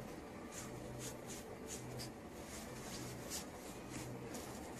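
A Yorkshire terrier wriggling and rolling on its back on a bed sheet, the fabric rustling in quick, repeated scratchy strokes.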